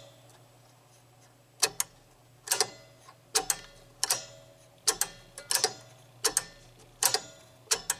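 Pinball relay armature clicking in and out over and over, in quick double clicks about every 0.7 s, starting about a second and a half in, over a faint steady hum. This is the start relay on a 1966 Gottlieb Mayfair's relay bank, and each pull-in closes the armature switch underneath it.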